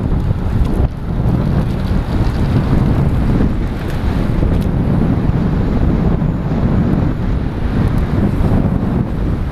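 Wind buffeting the microphone of a helmet-mounted GoPro in an open skeleton housing while cycling at race speed: a loud, steady low rumble.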